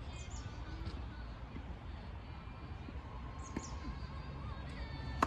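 Tennis court sounds under a steady low hum: a few brief high-pitched squeaks near the start and again past the middle, and one sharp strike of a ball on a racket at the very end.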